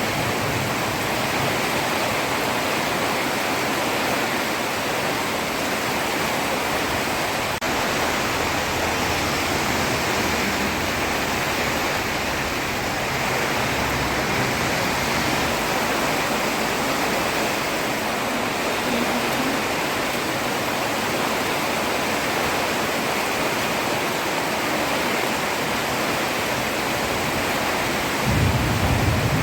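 Heavy rain falling steadily on a road, an even hiss. A low rumble rises near the end.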